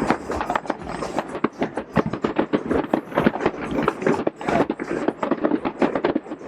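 Fireworks going off in rapid, irregular succession, a dense string of sharp bangs and crackles several per second.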